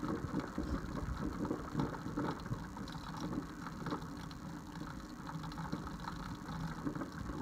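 Coffee maker gurgling and sputtering irregularly as it brews.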